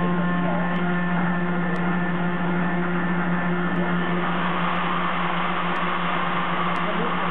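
CNC milling machine's end mill cutting 16MnCr5 case-hardening steel on an iMachining toolpath. A steady hum and several steady higher spindle tones sit over the hiss of the cut, which grows a little stronger about four seconds in.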